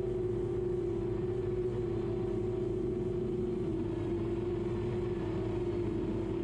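Quadcopter drone's electric motors and propellers humming at one steady pitch, with no change in speed.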